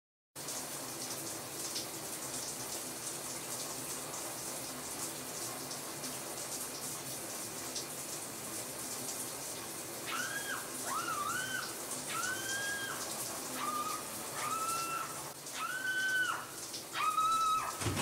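Shower running steadily. About ten seconds in, a high melody of held, gliding notes comes in over it and grows louder toward the end.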